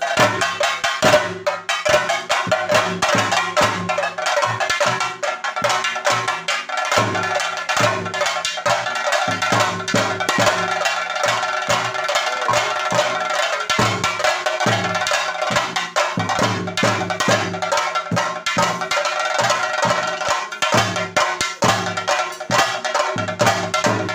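Several chenda drums, the Kerala cylindrical stick drums, beaten fast and densely in theyyam drumming, with a low beat about twice a second and a bright metallic ringing over the strokes.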